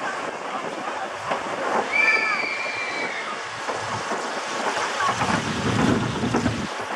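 Zierer Tivoli family roller coaster train running along its track, heard from a seat on board, with a brief high squeal about two seconds in. A low rumble builds from about five seconds in as the train climbs.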